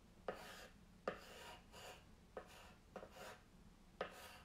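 Paint pen nib tapping down and scratching across a laminate drawer front in about five short, faint strokes, roughly one a second.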